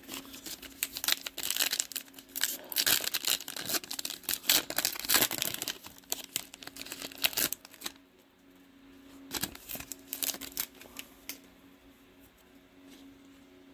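Plastic wrapper of a pack of trading cards being torn open and crinkled: dense crackling for about seven seconds, then quieter handling with a few scattered crackles.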